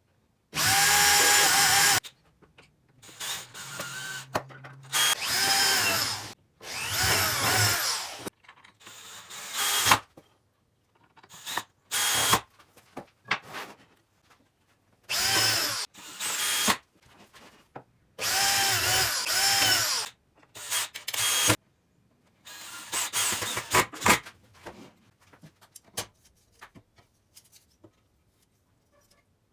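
Electric hand drill run in repeated short bursts of a second or two, its motor whine rising and falling in pitch as it speeds up and slows down, with brief pauses between bursts.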